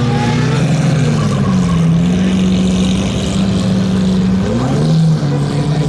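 Lamborghini Murciélago's V12 engine pulling away at low speed: the revs rise over the first second or so, hold steady, then climb briefly again near the end.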